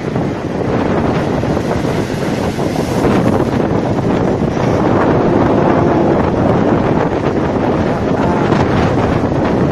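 Sea waves washing ashore, with wind buffeting the microphone throughout.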